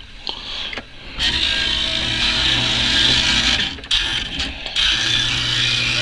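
Steady whirring mechanical hum and din of arcade machines around a claw-crane game, starting about a second in.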